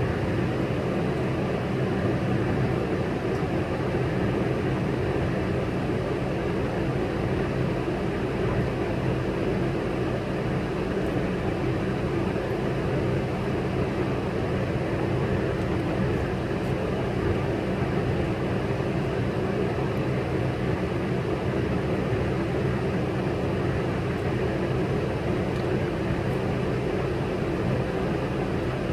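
Diesel semi-truck engine idling steadily, an even low hum with no revving or change in pitch.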